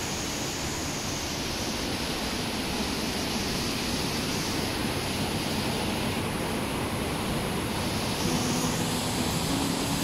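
Steady rush of a small waterfall plunging into a rock pool, growing a little louder about eight seconds in.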